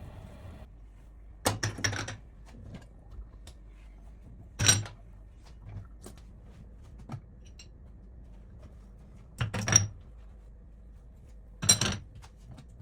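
Kitchen clatter of dishes and utensils being handled: four short knocks a few seconds apart, some with a brief metallic ring. A faint steady hum cuts off under a second in.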